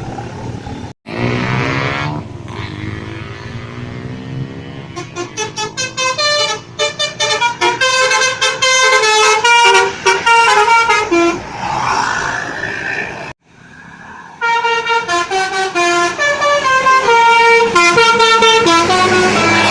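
Indonesian bus basuri horn, a multi-tone 'telolet' horn, playing melodies. Sliding tones come first, then fast runs of stepped notes, broken by two sudden short gaps.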